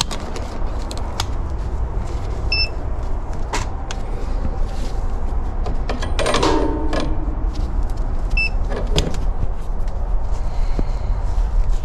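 Steady low rumble with scattered handling clicks and knocks. Two short high electronic beeps about two and a half and eight and a half seconds in, and a brief pitched whine around six to seven seconds in.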